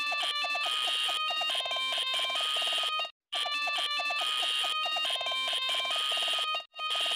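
Electronically distorted logo-intro audio: layered copies of a jingle under an effect, heard as a harsh, alarm-like buzzing with stepped electronic tones. It cuts out briefly about 3 s in and again near the end, then restarts.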